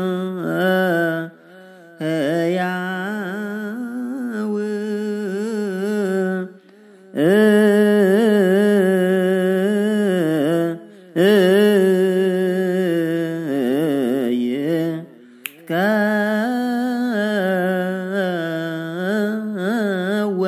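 Unaccompanied solo voice chanting an Ethiopian Orthodox Ge'ez hymn in zimame style, long melismatic phrases with wavering ornaments, broken by short pauses for breath. A single sharp click about fifteen seconds in.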